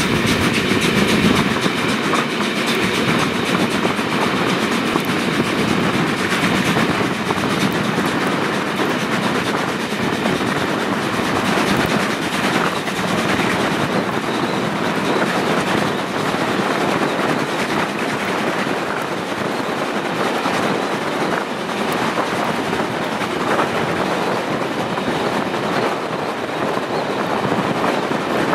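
Train hauled by the steam locomotive 01 202, heard from an open carriage window while running at speed: a steady rush of running noise and wind with the clickety-clack of wheels on the rails.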